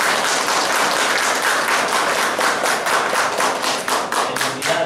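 A small congregation applauding: many people clapping steadily together.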